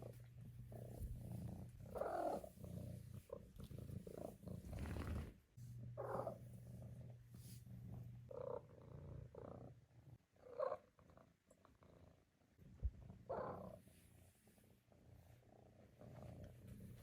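Maine Coon kitten purring, steady for about the first eight seconds and fainter after, with about seven short chirps and trills scattered through.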